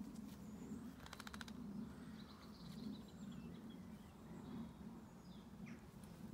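Faint outdoor ambience with small birds chirping in the background. About a second in there is a quick rattling run of about a dozen clicks, and a steady low hum runs underneath.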